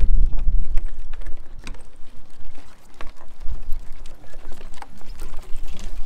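Footsteps of a walker and the claws of two Jindo dogs on wooden boardwalk planks: irregular clicks and knocks. Wind rumbles on the microphone, strongest in the first second and again near the end.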